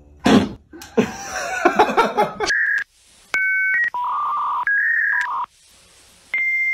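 A few sharp knocks and some clatter in the first two seconds, then a series of electronic telephone-style beeps: steady tones at several different pitches, each about half a second long with short gaps between them, and a long high tone starting near the end.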